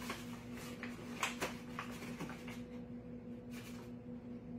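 Light handling sounds on a kitchen counter: a few soft, scattered clicks and rustles over a steady low hum.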